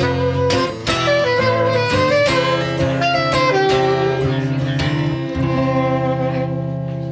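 Guitar playing the closing instrumental bars of a song, picked notes over a steady low line, with a last chord left to ring and fade near the end.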